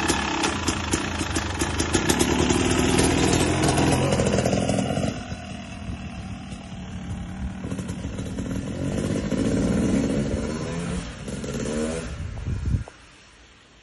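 Yamaha YZ250X two-stroke dirt bike pulling away and riding off, its engine revving up and down. The engine is loud close by, drops after about five seconds, swells again with more revving, then falls away suddenly near the end.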